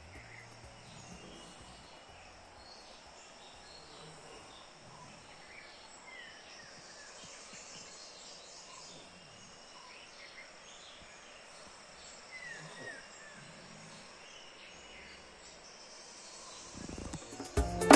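Quiet wild-country ambience: a steady high insect drone with scattered short bird chirps.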